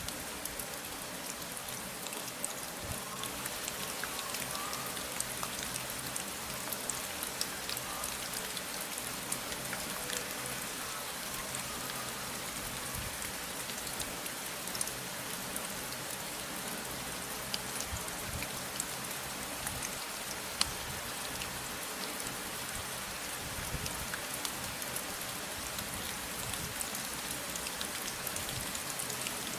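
Steady rain falling, a continuous hiss with many individual drops ticking.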